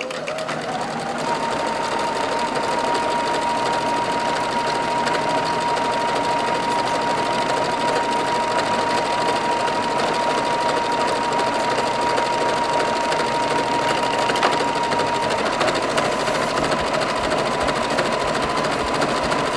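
Electric household sewing machine running steadily through an automatic buttonhole stitch with its buttonhole foot: a fast, even needle rattle over a steady motor whine that stops right at the end.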